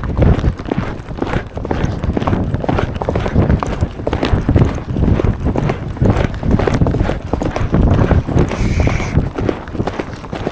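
Hoofbeats of ridden horses on a forest trail, heard close up from the saddle as a steady, irregular run of strikes. A brief higher-pitched sound comes about nine seconds in.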